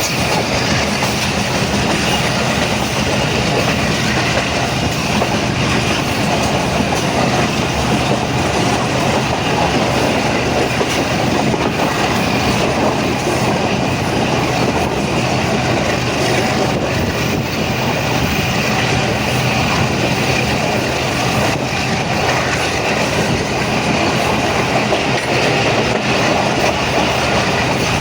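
Pakistan Railways train running along the track: a steady loud rumble of wheels on rails with clickety-clack over the rail joints, heard from on board.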